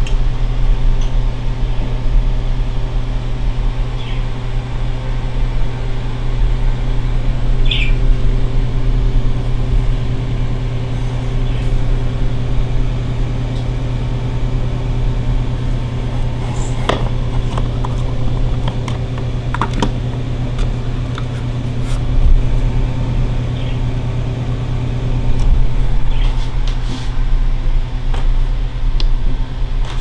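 Steady low hum of a running desktop computer's fans and liquid-cooling radiator, with scattered light clicks and taps.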